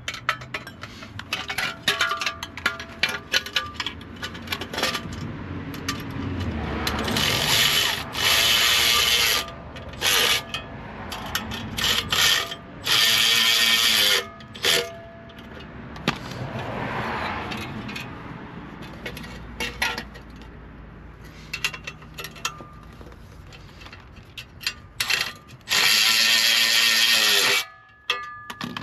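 A power tool runs in four bursts of one to two seconds each, tightening down the condenser-kit bolts. Short clicks and clinks of tools and hardware fill the gaps.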